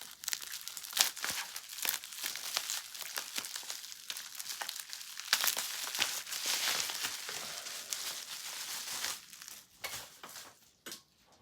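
Bubble wrap and packing tape being pulled and torn off a parcel: dense crinkling and crackling with sharp tearing clicks, thinning out and quietening about nine seconds in.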